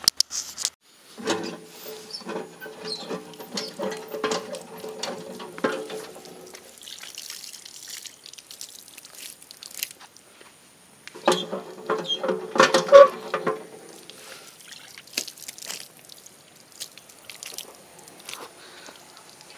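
Borewell hand pump being worked: water splashing from the spout onto the concrete platform, with two spells of creaking and clanking from the pump, about a second in and again near the middle.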